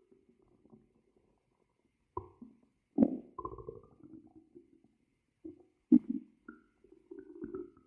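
Hungry human stomach growling: irregular gurgles and rumbles starting about two seconds in, with a few sudden louder gurgles and short high-pitched squeaks near the end.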